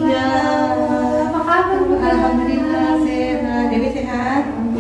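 An unaccompanied singing voice holding long notes that slide slowly up and down, with no instruments.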